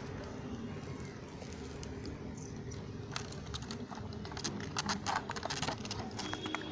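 A kitten's claws scratching and gripping a weathered wooden post: a run of quick dry clicks and scrapes starting about three seconds in, over a steady low background hum.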